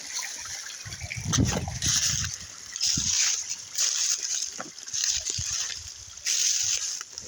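Footsteps of a person walking, about one step a second, each step a short rustling crunch, some with a low thud.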